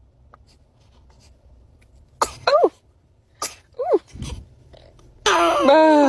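A baby sneezing in small, high, squeaky bursts: a quick pair about two seconds in, two more near four seconds, then a louder pitched sound about a second long near the end.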